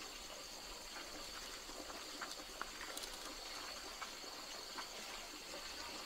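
Insects, crickets or cicadas, chirring faintly and steadily in one high-pitched drone, with a few faint ticks scattered through it.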